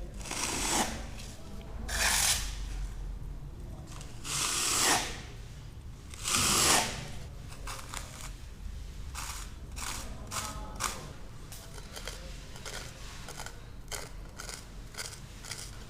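A hand tool scraping plaster on a cornice: four long, loud strokes about every two seconds, then a run of short light scrapes and taps.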